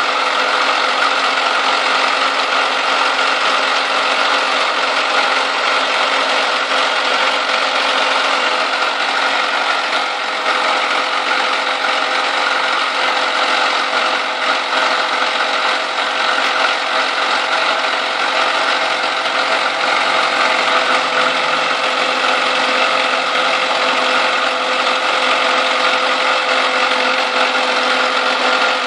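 Chevrolet Niva's 1.7-litre four-cylinder petrol engine running steadily from cold, below 30 °C, with a knock inside the engine whose cause the owner is asking about.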